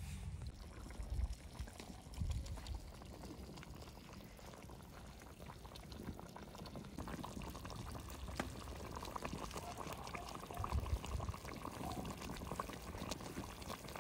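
Liquid pouring steadily into a cooking pot, with a few low bumps.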